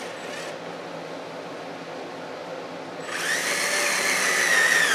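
Cordless drill driving a screw through a pocket hole into a plywood-and-pine nesting box: a brief spin at the start, then a longer whine of the motor that starts about three seconds in, rising slightly as it gets up to speed and running to the end.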